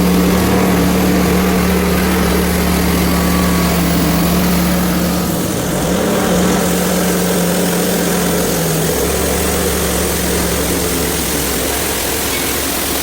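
Hudson Homesteader HFE30 bandsaw mill's gas engine running at high speed, driving the band blade through an ice-covered log. The engine note holds steady, with a brief dip in pitch about six seconds in.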